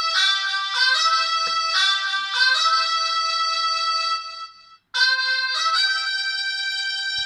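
Polyphonic ringtone melody from a Pirelli DP-L10 phone's Winbond W56940 40-voice sound chip, several synthesized notes sounding at once. It stops for a moment at about four and a half seconds, and a melody starts again just before five seconds in.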